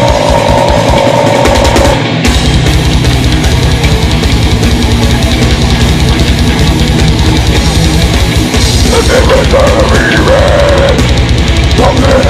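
Heavy metal band playing live, with distorted guitars over fast, driving drums. A short break comes about two seconds in, then a rapid, even kick-drum pattern runs under the riff.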